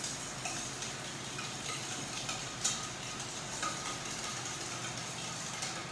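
Wire whisk beating sour cream in a stainless steel mixing bowl: a steady scraping, with a few sharper clinks of the wires against the metal.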